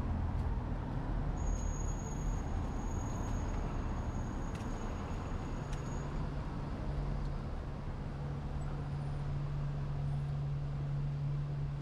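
Road vehicle engine running steadily with a low rumble. A droning hum grows stronger about halfway through, and a thin high whine sounds for a few seconds before that.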